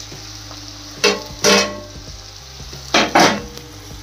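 Okra and potatoes sizzling in a steel kadai over a high flame, with four loud clattering scrapes of a steel spatula against the pan in two pairs, about a second in and about three seconds in, each ringing briefly.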